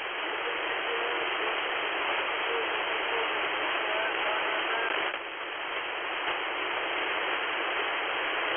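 Shortwave receiver in upper-sideband mode on 4060 kHz: a steady band of static hiss with faint, broken traces of a very weak upper-sideband transmission in its first half, too faint to make out.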